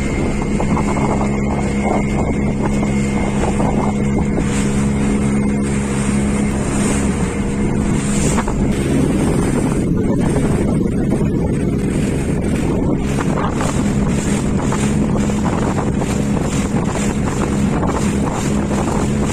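Speedboat engine running steadily at speed, with wind buffeting the microphone.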